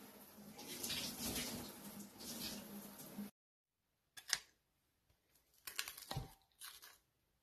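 Water running from a tap into a sink, a steady hiss that cuts off suddenly about three seconds in. After a short silence come a few sharp clicks and a low knock.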